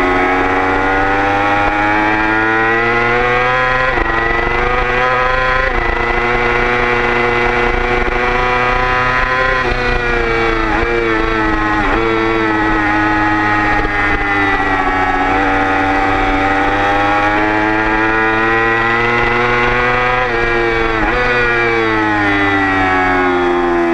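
Onboard sound of a motorcycle engine at full throttle on track. The revs climb and step sharply with each gear change, with a run of quick downshifts about ten to twelve seconds in and again near twenty seconds.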